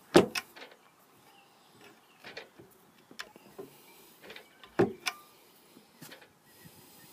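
Scattered clicks and knocks of a gennaker bowsprit's end fitting being seated over a stainless deck padeye and pinned in place by hand, the loudest knocks just after the start and about five seconds in.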